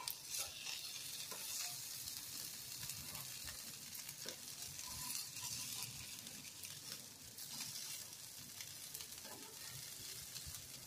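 Breadcrumb-coated vegetable patties shallow-frying in oil in a pan, sizzling steadily, with a few light taps of a metal spatula as they are turned.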